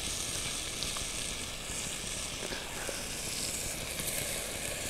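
Hot cooking oil sizzling steadily in pans on a wood-fired stove.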